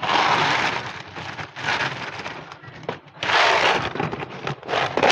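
Plastic bag crinkling in several bursts as wet cat food is squeezed out of it.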